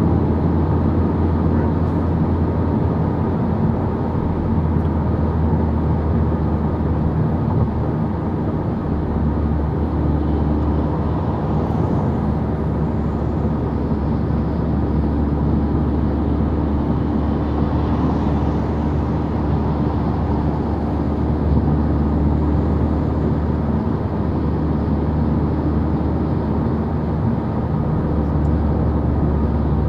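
Cabin noise of a Volkswagen Golf 6 GTI Edition 35 cruising at motorway speed: the steady drone of its turbocharged 2.0-litre four-cylinder engine mixed with tyre and road noise.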